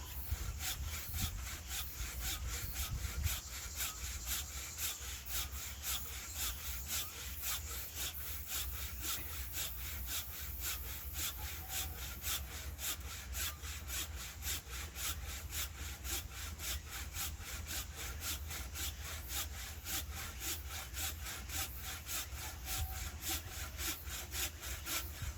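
Hand saw cutting through firewood, back-and-forth strokes in a quick, even rhythm of about three a second.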